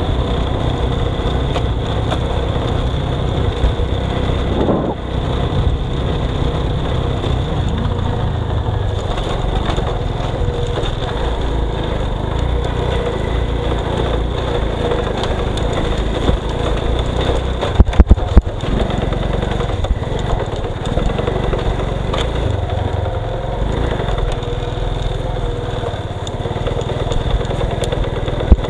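A vehicle engine running with a steady low rumble, broken by a few sharp knocks about eighteen seconds in.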